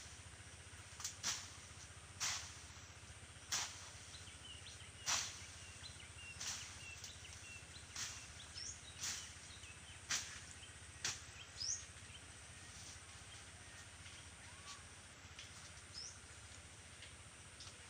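A blade slashing through thick grass and weeds, with a sharp swish about once a second that thins out near the end. Faint bird chirps come in between the strokes.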